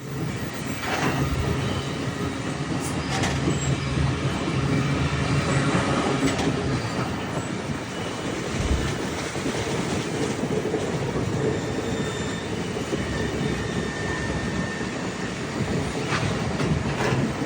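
Rocky Mountaineer passenger train running on the track: a steady rumble and rattle of the wheels, with a few sharp clicks and a faint high wheel squeal.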